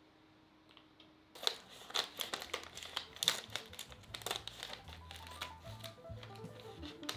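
A bag of potato chips being pulled open and handled, its packaging crinkling in a rapid, irregular stream of crackles that starts suddenly about a second and a half in. From about four seconds in, soft background music with a bass line plays under the crinkling.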